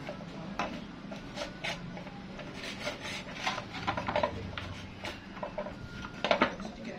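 Metal parts of a Yamaha 40 hp outboard's recoil starter clinking and scraping as the pulley is worked by hand into its housing over the rewound spring: irregular small clicks and rubs, with a louder cluster of clinks near the end.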